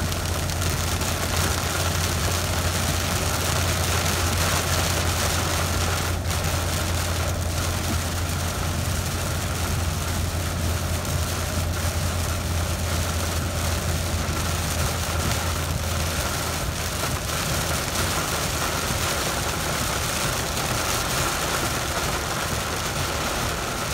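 Very heavy rain beating on a truck's roof and windshield, heard from inside the cab, over the steady low drone of the engine and tyres on a wet road. The low drone fades about two-thirds of the way through while the rain noise keeps on.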